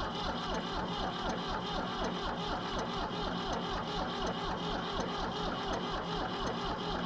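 Starter cranking the cold three-cylinder engine of a 1966 Ford 4000 tractor. It turns over in a steady, even rhythm of about six compression pulses a second, and the engine does not catch.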